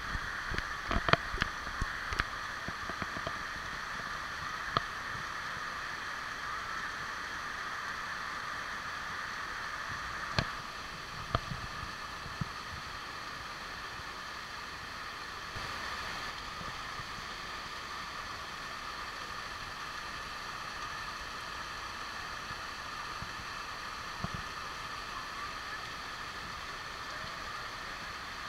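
Waterfall splashing down over stepped rock ledges in many thin streams: a steady, even rush of falling water. A few sharp knocks stand out, several in the first two seconds and a handful later.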